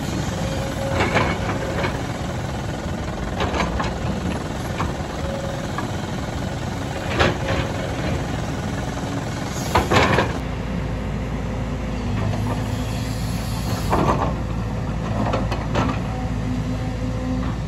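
Hydraulic crawler excavator (JCB 225 LC) with its diesel engine running steadily while it works, with about six sharp clanks and knocks of the bucket and machinery on rock and soil, the loudest about ten seconds in. About ten seconds in the engine's low hum grows stronger and steadier.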